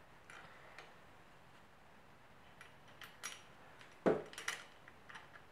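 Small metal engine parts clinking and clicking as a starter clutch and its washers are handled and fitted on a scooter engine. The clicks are scattered and light, with one louder knock about four seconds in.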